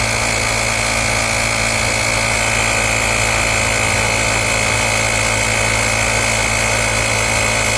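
Electric air compressor of a UIBI X5 jump starter running steadily while inflating a tire: a bit noisy, an even mechanical buzz with a constant high whine over a low hum.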